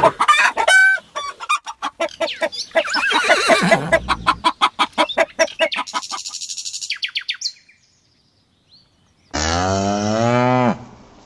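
Chickens clucking in quick, repeated calls, then after a short pause a single long cow moo near the end.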